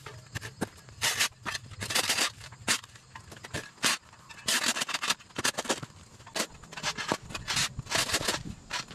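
Square-bladed steel shovel scraping dirt and grass off a concrete sidewalk in short, gritty strokes, irregular, about one or two a second.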